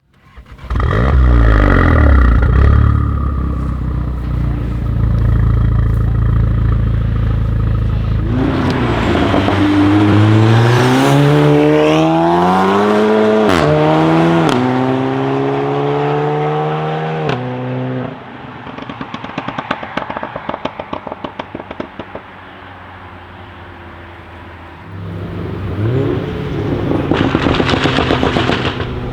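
Tuned Volkswagen Golf 7 R's turbocharged 2.0-litre four-cylinder engine and exhaust. It runs loud at steady revs for several seconds, then accelerates hard with its pitch climbing through two quick upshifts. On lift-off it gives a string of exhaust crackles and pops, and it revs up again near the end.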